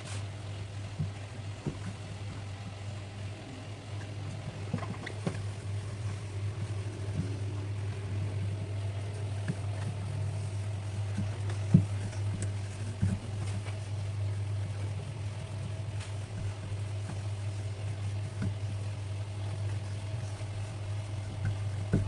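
A steady low hum, with scattered light clicks and knocks over it, one sharper knock about halfway through.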